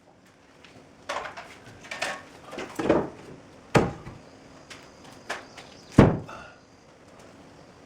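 A series of irregular wooden knocks and thunks from work on a board-clad shed wall, about six in all, the two sharpest near four and six seconds.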